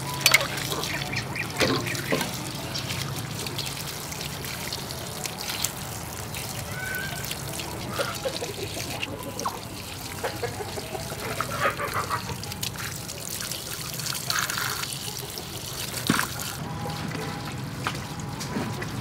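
Tap water running and splashing onto freshly dug arrowroot as the roots are rinsed and scraped with a knife, with a few sharp knocks and scrapes. Ducks quack now and then in the background.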